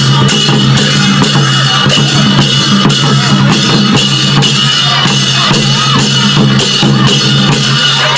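Live Nepali folk percussion: double-headed barrel drums beaten in a steady rhythm, with hand cymbals clashing along.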